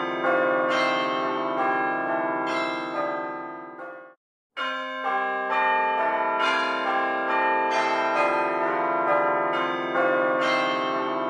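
Music of chiming bell-like notes, many ringing over one another. It dies away to a brief silence about four seconds in, then starts up again.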